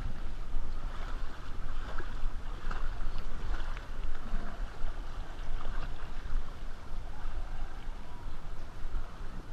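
Water lapping and splashing against an inflatable ring drifting along a lazy river, with small irregular splashes over a steady low rumble of wind on the microphone.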